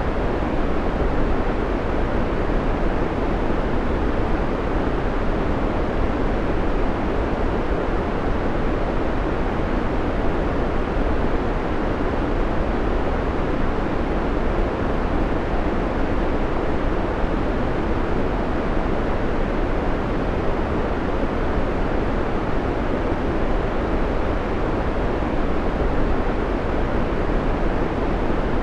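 Steady, unbroken white noise played as a timer's background track: an even, deep hiss with no changes.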